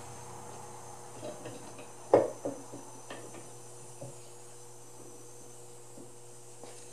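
Steel gears of a manual transmission's gear shaft assembly clinking and clanking against each other and the case as the shaft stack is handled and lowered into a VW 02J transmission case; one sharper clank about two seconds in, with several lighter clinks around it.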